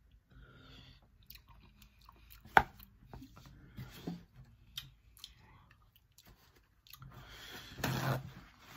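Close-up eating sounds of a seafood boil: chewing, with scattered clicks and cracks from handling snow crab legs, one sharp crack about two and a half seconds in the loudest. Near the end comes a louder rustle of a paper towel being pulled.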